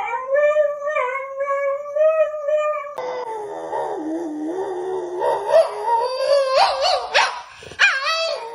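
A dog howling in a long, wavering note. About three seconds in the sound changes abruptly to another stretch of howling, broken by short rising yips near the end.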